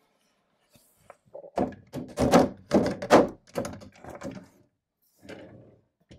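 Wooden dresser drawer on vinyl roller glides being fitted onto its tracks and pushed in: a quick run of knocks and rolling rattles over about three seconds, then a couple of lighter knocks near the end as it settles shut. The glide rails are freshly coated with silicone grease to cure the drawer's rubbing.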